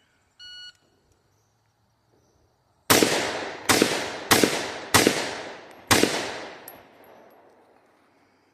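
A shot timer's start beep, then five rifle shots fired in about three seconds, each followed by a long fading echo.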